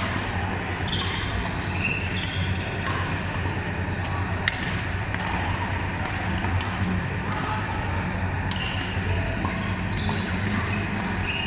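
Badminton rackets striking a shuttlecock in a doubles rally: sharp cracks about once a second, the loudest about four and a half seconds in. Short squeaks of sports shoes on the court floor come between the hits, over a steady low hum.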